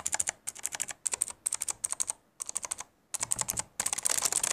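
Fast typing on a Tigoes K2 budget keyboard with blue clicky switches: runs of sharp key clicks broken by brief pauses. The clicks are bright but not very shrill.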